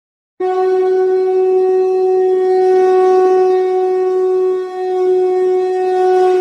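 Background music: a wind instrument holding one long, steady note. It starts suddenly about half a second in and dips briefly about two-thirds of the way through.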